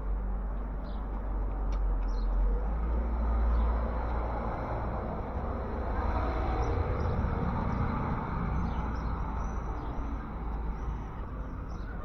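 Street ambience: traffic noise with a deep rumble that swells twice as vehicles go by, with short high bird chirps over it.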